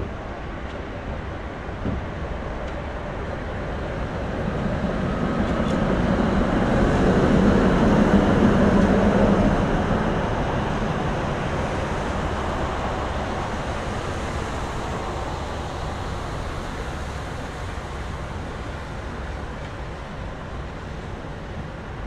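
A tram passing on street rails: its rumble swells to a peak about eight seconds in, then fades slowly, over a steady city background hum.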